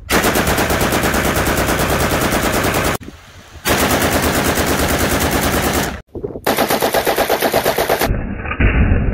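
AK-pattern rifles firing long full-auto bursts: three sustained strings of rapid shots of two to three seconds each, broken by short gaps, then a duller-sounding burst near the end.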